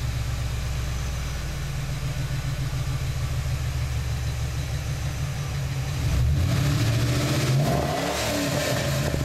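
Pickup truck engine with OBX headers, Magnaflow catalytic converters and a true dual exhaust through Super 44 mufflers. It idles steadily at a low pitch, grows louder about six seconds in, and near the end is revved briefly, the pitch rising and falling before it settles back to idle.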